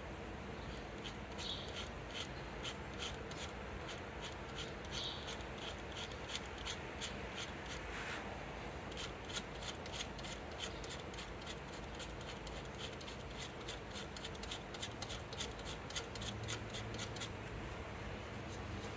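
Blade tip of a folding multi-tool scratching lettering into the black finish of a javelin shaft: many short, quick scraping strokes, coming thick and fast through the middle and easing off shortly before the end.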